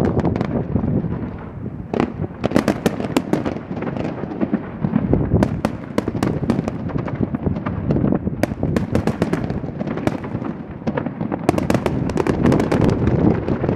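Fireworks going off: a continuous run of sharp cracks and pops, dense in clusters, over a low rumble of booms.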